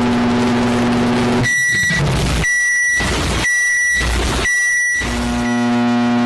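Microwave oven running with a steady hum. The hum cuts out about a second and a half in, the oven beeps four times about a second apart, and the hum starts again near the end.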